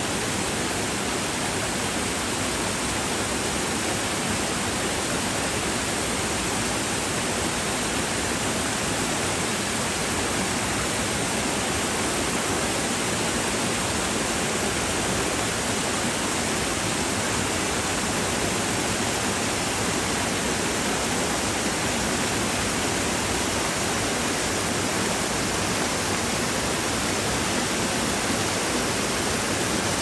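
Rocky mountain stream rushing steadily over boulders and small cascades into a pool, a constant splashing of water.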